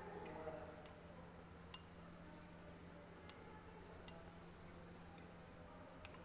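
Near silence: quiet room tone with a steady low hum and a few faint, scattered clicks.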